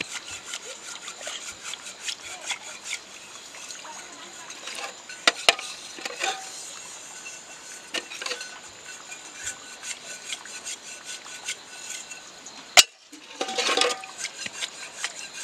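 Cooking utensils clinking and scraping against a pot, with many small rapid clicks and a few sharper knocks, one near the middle and one late on.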